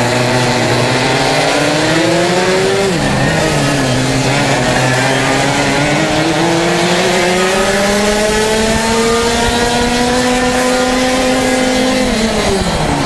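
Racing kart engine under full throttle, its pitch climbing for about three seconds, then dropping sharply as the throttle comes off. It then climbs steadily for about eight seconds before falling again near the end.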